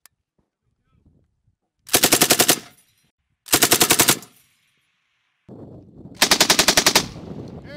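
M240B 7.62 mm belt-fed machine gun firing three short bursts of rapid automatic fire, each a quick string of shots. The third burst is the longest.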